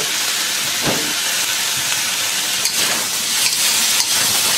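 Beef and vegetables sizzling in a wok on high heat, a steady hiss, with a few clicks of the metal spatula and ladle against the wok in the second half.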